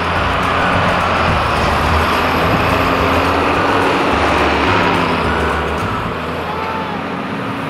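A John Deere farm tractor's diesel engine running steadily as it tows a canoe over snow, with a steady rushing noise over the engine.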